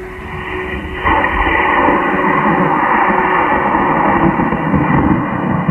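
Model rocket motor lighting and burning on lift-off: a sudden loud rushing noise starts about a second in and holds steady.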